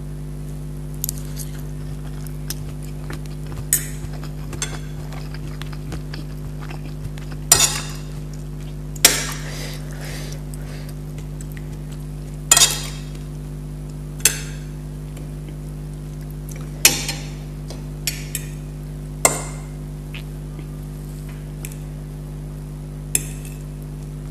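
A metal fork clinking and scraping against dinner plates, in sharp single clinks every few seconds, over a steady low hum.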